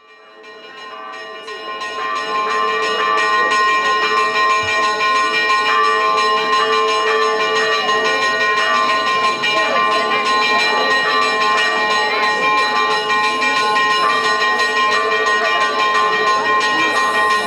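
Church bells pealing, struck over and over in quick succession so their tones ring together, fading in over the first couple of seconds and then ringing loudly and steadily.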